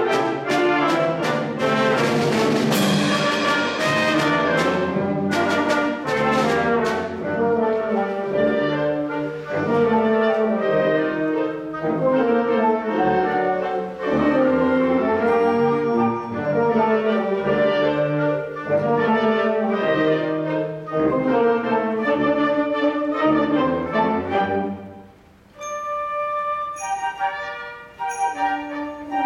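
Concert wind band playing a full passage with the brass section to the fore and sharp percussion strikes over the first several seconds. About 25 seconds in, the full band drops away and a thinner, higher passage takes over.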